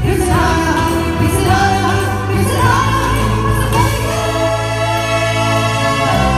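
Singing with live band backing: a voice holding and changing sung notes over a steady bass line, from a stage performance of a Hindi film song.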